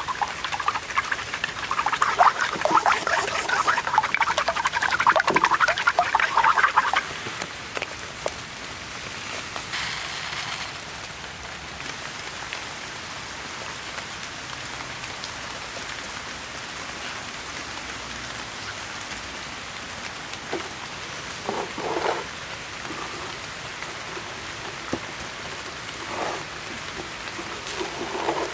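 Eggs beaten briskly with a wooden fork in a stone bowl: rapid clicking and scraping that stops about seven seconds in. Steady rain patter follows, with a few soft handling sounds as the meat is dipped in egg and pressed into breadcrumbs.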